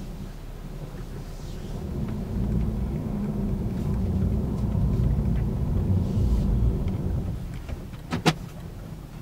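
A car heard from inside the cabin as it pulls away and drives: a low engine and road rumble that grows louder a couple of seconds in, then eases off. Near the end there is one short, sharp sound.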